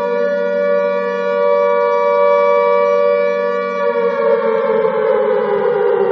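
Alarm siren sounding a loud, steady wail that begins to fall in pitch about four seconds in, as if starting to wind down.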